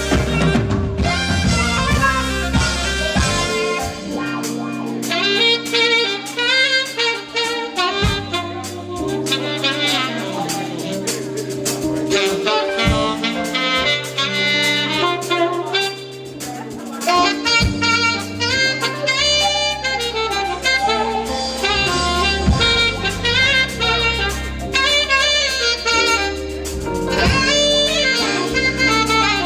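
Saxophone playing a jazz melody over a band backing with a bass line and drums.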